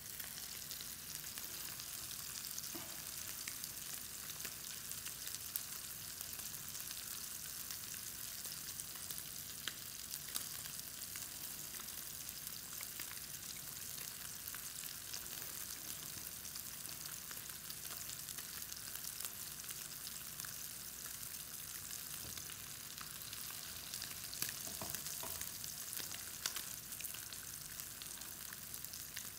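Tilapia fillets searing skin side down in hot oil in a skillet: a steady sizzle with faint crackling pops.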